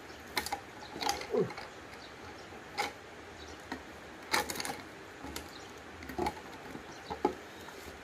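Irregular clicks and crinkles of a plastic PET water bottle being handled while cord is tied around its neck, with a soft rustle of the cord.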